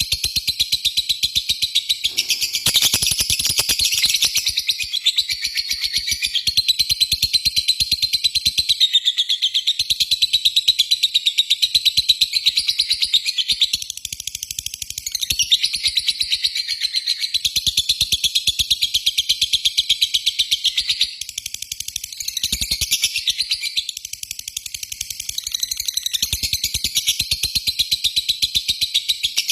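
Lovebird chattering in a long, unbroken run of rapid shrill notes (the 'ngekek' call used as a lure for other lovebirds), dipping briefly a couple of times.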